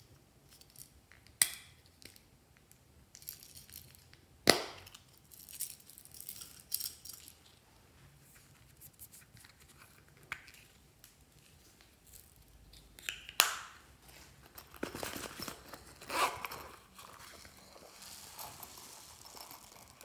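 Hands handling small plastic containers and toys: three sharp plastic clicks, about a second in, around four and a half seconds in, and past the middle, with crinkling and rustling in between and a denser rustle near the end.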